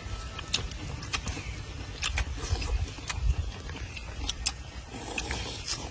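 A person eating with bamboo chopsticks from a coconut-shell bowl: scattered sharp clicks and mouth smacks, about eight in all, over a low steady rumble.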